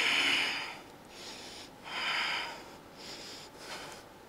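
A man breathing hard and forcefully with the effort of a set of dumbbell curls: three strong breaths about a second or so apart, the first the loudest.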